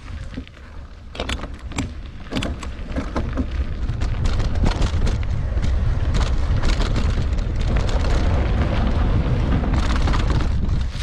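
Mountain bike ridden over rough single-track trail: wind buffeting the microphone with a heavy low rumble, over a steady patter of clicks and rattles from the tyres and bike on the rough ground, growing louder about four seconds in.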